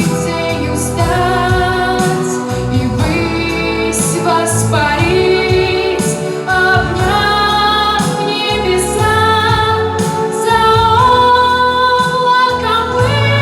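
Music: a song with a woman's voice singing a melody of long held notes, without clear words, over instrumental accompaniment.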